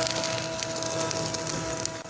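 Corn tube extruder making puffed rice snack tubes: a steady machine hum with a high whine, and fine irregular crackling clicks over it. The level dips briefly near the end.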